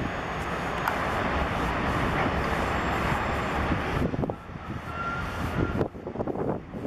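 Boeing 737-700 jet engines (CFM56-7B) running loud during the landing rollout: a steady, dense rush of engine noise that drops off sharply about four seconds in.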